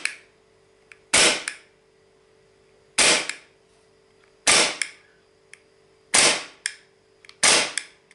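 APS C.A.P. CO2 airsoft pistol firing: five sharp gas-powered shots, roughly every second and a half. Each shot is followed by a fainter click.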